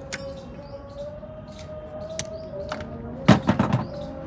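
Hand tools working the band clamp of a CV axle boot held in a metal vise: a few sharp metal clicks, then a quick run of four or five knocks about three seconds in. A steady whine runs underneath.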